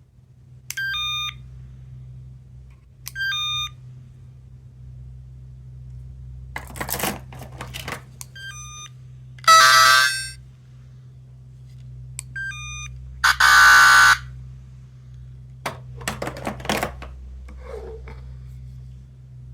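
Small sound-making capsule toy giving short electronic beeps from a tiny speaker, repeated every few seconds. It also plays two louder, fuller sound effects of under a second each, about ten and fourteen seconds in, with rustling and clicks of the toy being handled in between.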